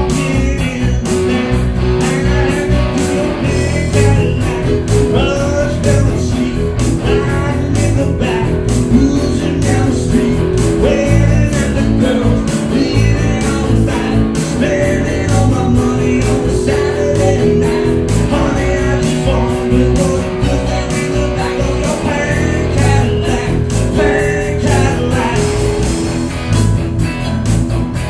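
Rock band music: guitars over a steady drum beat, with a singing voice.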